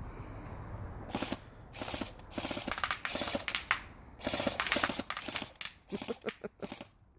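Custom K'nex M14 airsoft electric gun with G&P parts firing on full auto: about ten short bursts of its gearbox cycling rapidly. The bursts are longer early on and get shorter and choppier near the end.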